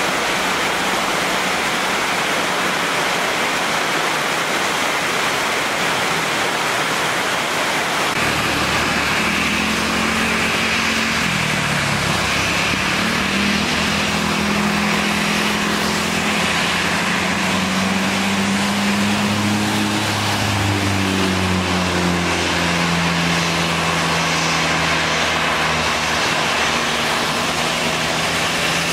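Heavy rain hissing steadily. About eight seconds in, the low hum of a Boeing 737-800's jet engines at taxi idle joins in, drifting slightly in pitch as the airliner rolls along a wet taxiway.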